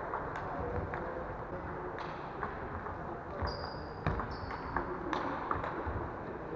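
Table tennis rally: the ball clicks sharply and irregularly off paddles and the table, with short high squeaks of shoes on the hall floor about three and a half and four and a half seconds in. Steady noise from the hall underneath.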